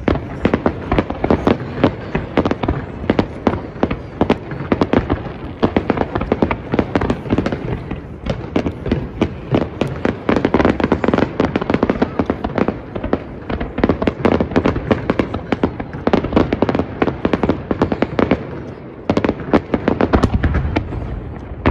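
Fireworks display: a dense, fast barrage of shell bursts and crackling pops, many reports a second, with a short lull near the end before the firing picks up again.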